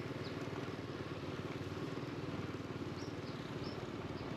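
Small motorcycle engine running steadily while riding, with a few faint high chirps.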